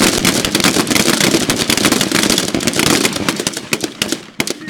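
Many rifles on a firing line shooting rapid control pairs in a timed drill, the shots overlapping into a dense crackle that thins out and stops near the end.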